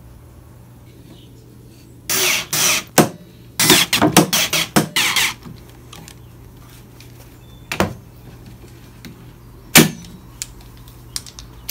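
Cordless drill driving pocket-hole screws into a clamped face-frame joint in several short bursts, about two to five seconds in. Two sharp clicks follow later, the louder near the end.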